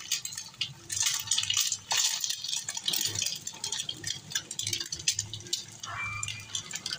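An egg frying on a flat griddle (tava), sizzling with many irregular crackling pops.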